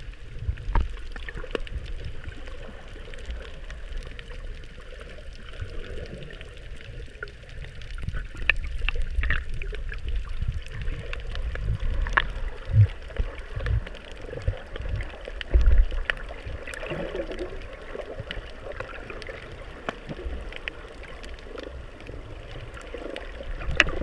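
Muffled water movement heard underwater: a low, uneven rumble with gurgling, scattered faint clicks and a couple of louder thumps around the middle.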